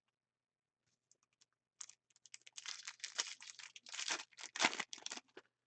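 A foil trading-card pack wrapper being torn open and crinkled by hand: a quick run of crackling, tearing rustles that starts about two seconds in and lasts some three seconds.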